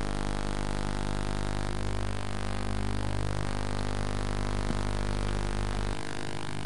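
Steady low hum over the faint background noise of a gymnastics arena. The lowest part of the hum breaks up about six seconds in.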